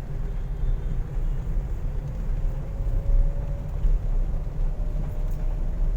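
Steady low rumble of a car on the move, heard from inside the cabin, with a faint hum that rises slightly in pitch partway through.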